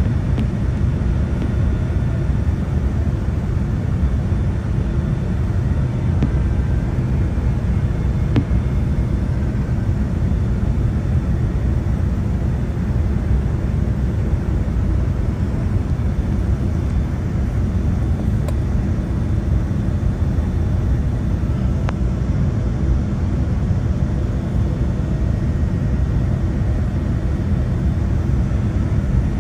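Cabin noise inside a Boeing 787-10 on its landing approach, heard at a window seat beside the engine: a steady, low rush of airflow and engine noise.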